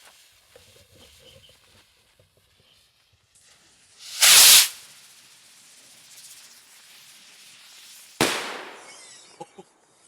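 Polywonder Kung Fu consumer firework rocket launching with a loud whoosh about four seconds in. Its shell bursts with a sharp bang near the end, fading off afterwards, followed by a few small pops.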